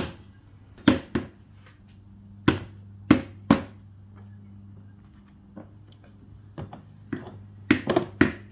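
Sharp, irregular knocks and taps of toy tools and plastic toy-car parts striking together, about six in the first four seconds, then fainter ones and a quick cluster of knocks near the end. A faint steady low hum runs underneath.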